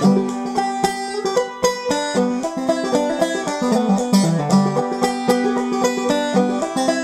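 Five-string banjo played clawhammer style, a quick, steady stream of plucked notes in an old-time tune in the key of G, standard open G tuning.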